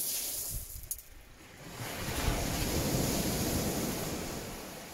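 Small surf breaking and washing up a shingle beach: a wash of noise that swells about two seconds in and then slowly fades.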